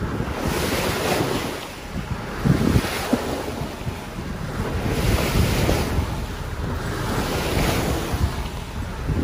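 Sailboat hull cutting through choppy sea, water rushing and splashing along the bow in surges every two to three seconds, with wind buffeting the microphone.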